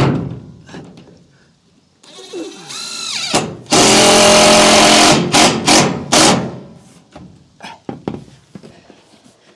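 A power drill driving a screw through the roofing metal to fasten the sheet's outer edge. It spins up, runs steadily and loudly for about a second and a half as the screw goes in, then gives three short trigger bursts to seat it. There is a knock just at the start.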